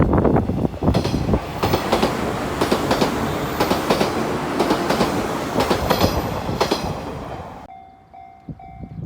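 JR 185-series electric train passing close by, its wheels clacking over the rail joints, dying away about three-quarters of the way through. After a sudden cut, a level-crossing alarm rings with a steady, repeating tone.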